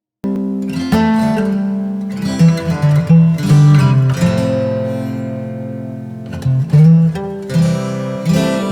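Background music of plucked and strummed acoustic guitar, starting abruptly about a quarter second in.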